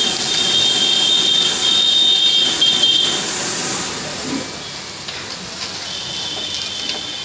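A stove's flames roaring up around a frying pan, with food sizzling in the pan. The roar drops about four seconds in as the flames die down.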